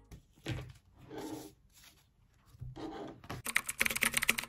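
A few soft rubbing, handling sounds of a hardback book being closed and slid on a desk, then near the end a quick run of laptop keyboard typing, about a dozen rapid keystrokes.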